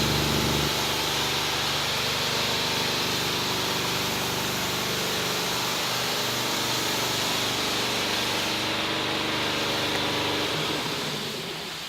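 A motor-driven shop machine running steadily, a low hum with a strong hiss over it; the hum fades away near the end.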